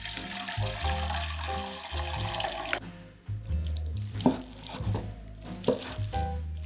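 Water running for about the first three seconds, then stopping. A kitchen knife then cuts through shirataki noodles onto a wooden cutting board with a few sharp knocks. Background music plays throughout.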